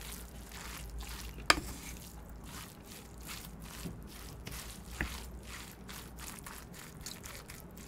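Close-miked eating sounds from a mouthful of bibimbap: soft, wet chewing and squishing ticks. A sharp click comes about a second and a half in, and a smaller one near five seconds.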